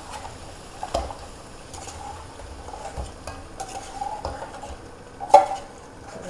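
Metal spoon scraping and clinking against a stainless-steel pot as boiled beef ribs are spooned into a wok of frying spice paste, which sizzles lightly. A loud metallic clank with a short ring comes about five seconds in.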